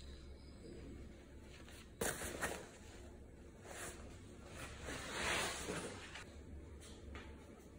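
Faint rustling of a black nylon bag and clothing as it is carried and handled, with a sharp click about two seconds in and a couple of louder swishes.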